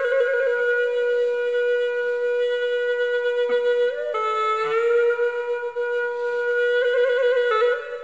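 Background music: a solo wind instrument playing a slow melody of long held notes, with quick trills on the note changes.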